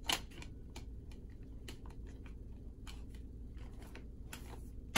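Steelbook Blu-ray case being handled: scattered small clicks and short rustles, with a sharper click just after the start and a longer rustle near the end.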